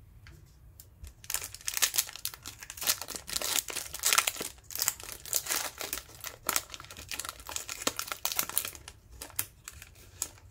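Foil wrapper of a basketball trading-card pack being torn open and peeled apart: a dense run of crinkling and tearing that starts about a second in.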